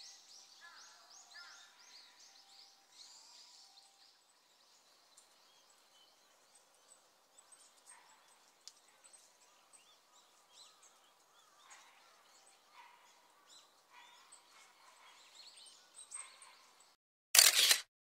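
Faint chirps and calls of small birds, many short high notes, over quiet outdoor ambience. Just before the end, a brief loud noise, then the sound cuts out.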